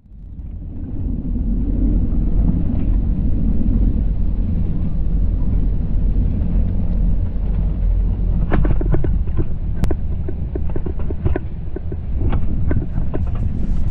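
Steady low rumble of wind on the microphone and tyre noise from a fat bike being ridden. From a little past the middle, a scatter of sharp ticks and crackles joins it.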